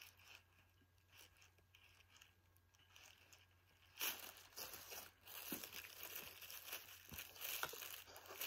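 Thin plastic shopping bag crinkling and rustling faintly as it is handled and a pipe cleaner is twisted onto it. Nearly quiet at first; the rustling starts about halfway through and comes in short, uneven bursts.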